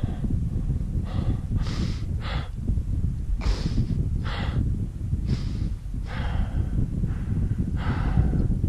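A climber's heavy, rapid breathing close to a helmet-mounted microphone: about nine hard breaths, roughly one a second, from exertion at about 6000 m altitude carrying a heavy pack.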